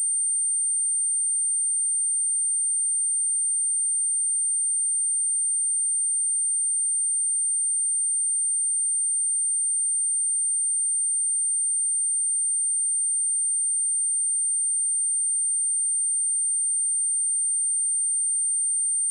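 Steady, unbroken high-pitched pure sine tone at 8866 Hz, a synthesized test tone with nothing else in it.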